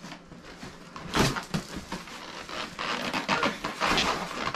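Large cardboard box being cut and torn open, its flaps pulled back: a loud rip about a second in, then a longer stretch of scraping and rustling cardboard.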